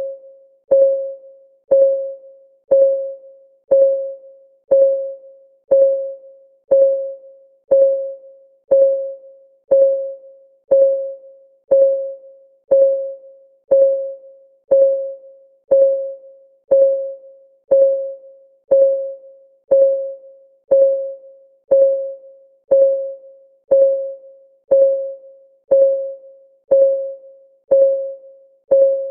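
Steady clock ticking sound of a countdown timer: about one tick a second, each a short pitched ring that dies away quickly.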